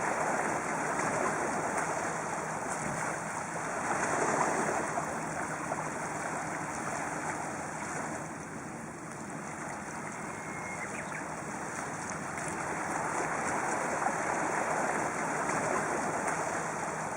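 Sea waves washing against the shore in a continuous rushing wash, swelling about four seconds in and again near the end, and easing off in between.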